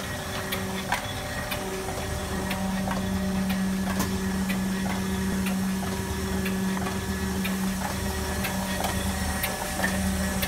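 Vertical handload cartoner running: a steady machine hum with a low pulsing and sharp mechanical clicks about twice a second as its carton handling cycles.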